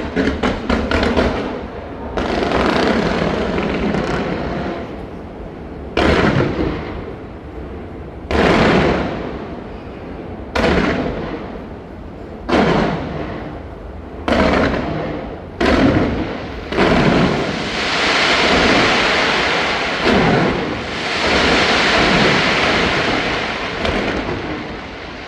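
Aerial fireworks going off. A quick string of sharp cracks opens, followed by loud bursts about two seconds apart, each trailing off in a fading crackle, and then a long stretch of dense crackling near the end.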